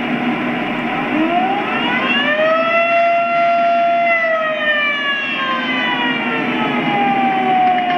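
A siren winds up over about a second and a half, holds its pitch, then slowly winds down, over the steady running noise of an O-gauge model train.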